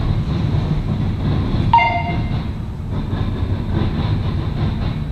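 Norfolk Southern mixed freight train's cars rolling by, a steady low rumble with the clickety-clack of wheels over rail joints. A brief high squeal sounds about two seconds in.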